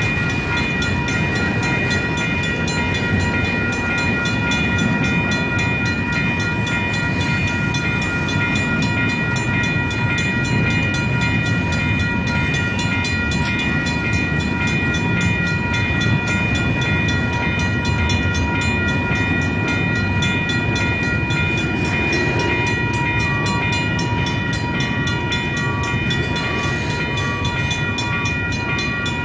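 Union Pacific double-stack intermodal freight cars rolling slowly past, a steady rumble of wheels on rail with several high ringing tones held over it. A pulsing tone joins near the end.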